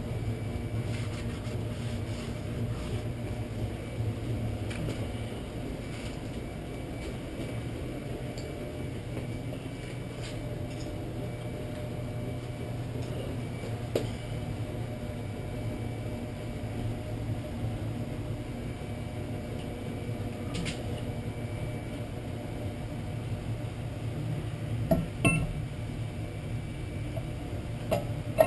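Steady low hum under light rustling and faint clicks as a new brake rotor is wiped and handled. Near the end come a few sharp metallic clinks as the cast-iron rotor is set onto the hub studs.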